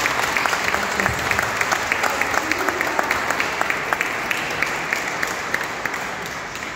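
Audience applauding in a hall: many hands clapping together, thinning out near the end.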